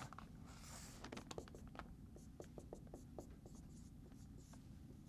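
Dry-erase marker writing on a whiteboard: faint scratchy strokes and many light ticks of the tip against the board.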